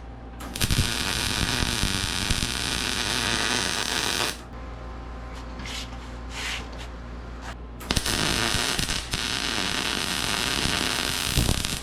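Electric arc welding: the arc crackles steadily in two runs of about four seconds each, with a short blip between, over a steady electrical hum. It is a nut being welded back onto a bolt at a pivot joint after the first weld let go.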